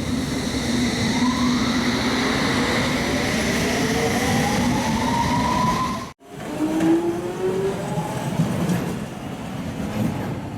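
Electric multiple-unit train running, its traction motors whining in slowly rising pitch over the rumble of the wheels as it gathers speed. The sound cuts off abruptly about six seconds in and resumes with another rising motor whine and some clicks from the wheels.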